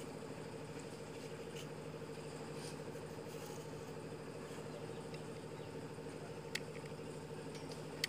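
Steady low mechanical hum, with two sharp clicks: one about two-thirds of the way in and one at the very end.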